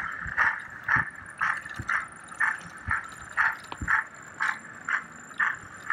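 Garden-railway model train running along the outdoor track, with a regular rattling click about twice a second.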